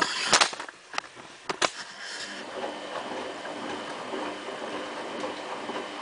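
Samsung WF8804RPA drum washing machine in its main wash: the drum starts turning about two seconds in and runs with a steady motor whine over a rushing wash sound. A few sharp knocks come before it starts.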